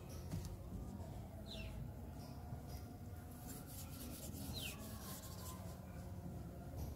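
Soft rubbing of floury dough between fingertips as it is rolled into thin seviyan strands, with two short falling bird chirps, one about a second and a half in and one near the middle, over a low steady background hum.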